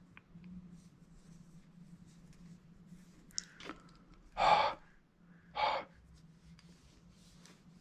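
A person's breath: two short, loud puffs of air about a second apart, the first longer, after a few light clicks of handling. A faint steady hum runs underneath.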